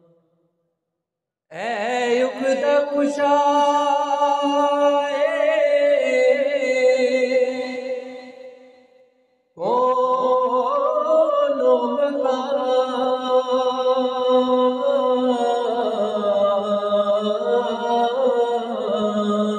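A man singing a naat unaccompanied into a microphone, in two long held phrases with wavering pitch. The first begins about a second and a half in and fades out past the middle; after a short pause the second begins and carries on.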